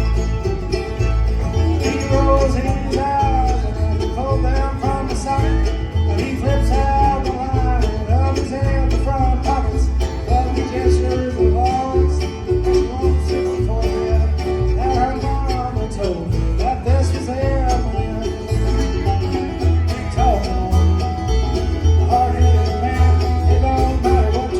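Background music: a country-style tune with plucked strings over a steady bass beat.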